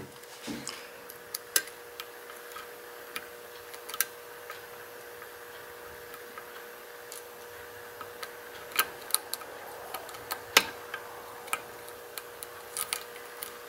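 Lock pick and tension wrench working the pin stack of a six-pin challenge lock during single-pin picking: light metallic clicks and ticks at irregular intervals, the sharpest about two-thirds of the way through.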